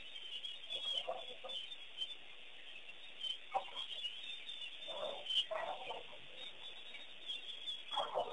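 Wild birds calling: a continuous chatter of high, short calls with several louder, lower calls about a second in, midway, and near the end.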